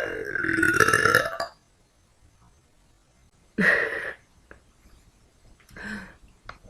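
A woman's long burp with a wavering pitch, ending about a second and a half in. A shorter, sharp burp follows a couple of seconds later, and a fainter one comes near the end.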